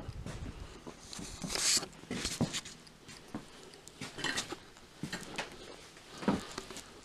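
Footsteps on old wooden floorboards strewn with debris, with irregular crunching and clattering as loose bits shift underfoot.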